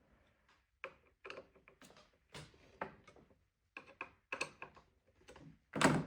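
Irregular clicks and light clatter of small parts on a Nakamichi 700 cassette deck's transport as a section is screwed back into place, with a louder knock near the end.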